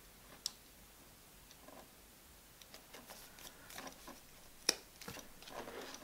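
Leather hole-punch pliers clicking shut as they punch through a leather strap: two sharp clicks about four seconds apart, with faint ticks and handling of the strap in between.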